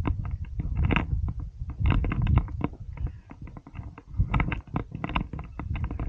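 Wind buffeting the microphone: a low rumble with irregular crackles and clicks.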